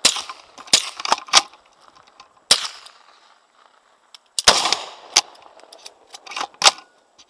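Firearm gunshots at irregular intervals, about nine in all, some loud and some fainter, the loudest trailing off in an echo.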